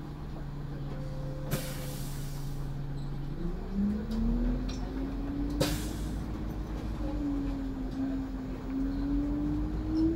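Renault Agora V2 city bus's diesel engine, heard from inside the cab: idling steadily, then a short air hiss, then the engine note rising as the bus pulls away, dipping once around seven seconds in and climbing again. A single sharp click comes about midway.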